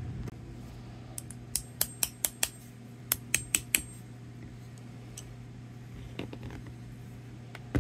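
Sharp metallic clicks and clacks, about a dozen in two and a half seconds, from handling the steel filter press tool and the fuel injector. A few fainter taps follow later.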